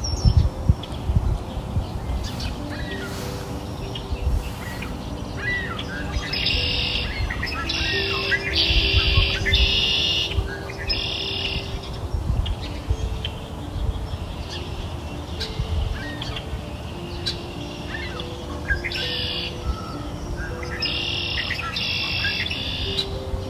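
Birds chirping in two spells of quick, bright calls, over soft background music of slow held notes.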